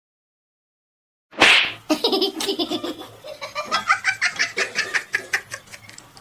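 Silence for over a second, then a sudden burst of breath noise followed by a person laughing hard in quick, choppy pulses that climb higher in pitch.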